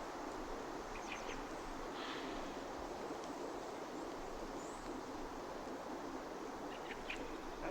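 Outdoor ambience: a steady background hiss with a few brief, high bird calls, about a second in, at two seconds, and again near the end.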